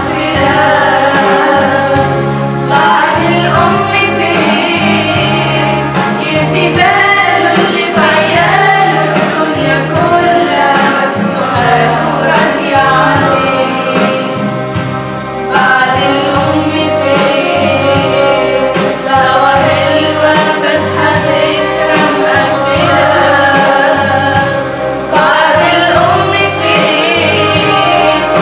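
Young women's voices singing a song together over a steady instrumental backing track.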